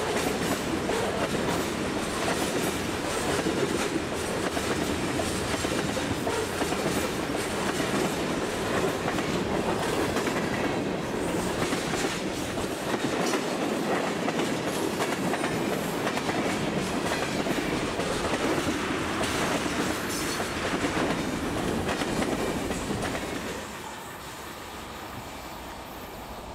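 Freight train cars rolling past on steel wheels, tank cars and then boxcars, with a steady rumble and clicking over the rails. The sound drops off sharply near the end as the last car passes and the train moves away.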